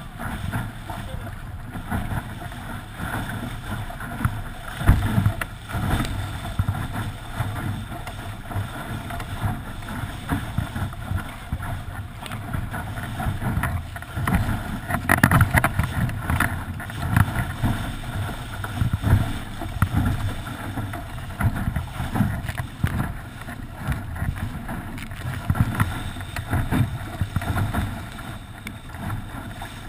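Wind buffeting the microphone, with water rushing and splashing along the hull of a small sailboat moving fast, and irregular low thumps as the hull slaps through the waves.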